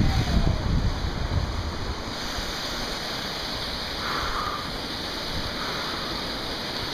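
Rumbling handling and rubbing noise on a hand-held camera's microphone in the first two seconds, dying away over a steady rushing hiss.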